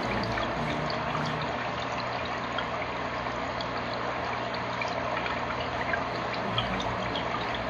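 Aquarium water trickling steadily, with small bubbly ticks and a faint low hum under it.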